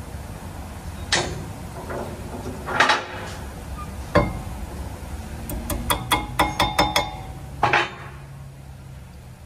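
Metal clanks and knocks from hand work on a van's rear disc brake caliper and bracket, with a quick run of ringing metallic clinks in the middle.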